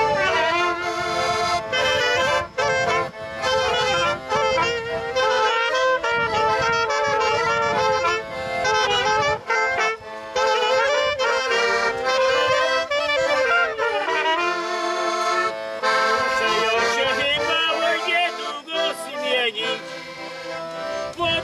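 Lively folk tune led by an accordion, with a trumpet joining. The pulsing low accompaniment drops out about halfway through, leaving the melody.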